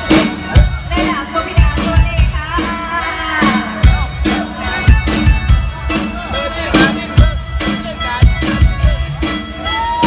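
Live Isan mor lam band music played loud through a stage PA, with a steady drum-kit beat under a melody line that bends and wavers in pitch.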